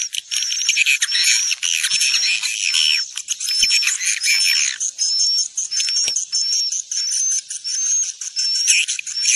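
Swiftlet roosting lure call: a dense, rasping twittering chatter of edible-nest swiftlets, with short high chirps repeating about twice a second. It is the kind of call played in swiftlet houses to draw the birds in to roost and nest.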